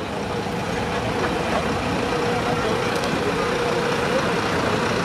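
Diesel engine of a Volvo FL fire engine running as the truck pulls slowly past. It grows louder over the first second as the truck approaches, then stays steady.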